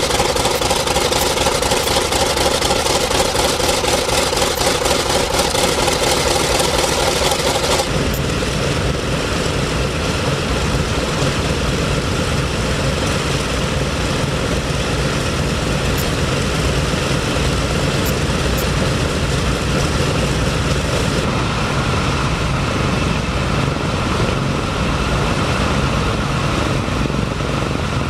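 Douglas DC-6's Pratt & Whitney R-2800 radial piston engines running on the ground with propellers turning, heard close beside an engine at first. After a cut about eight seconds in, the sound turns lower and deeper as the four-engined airliner taxis.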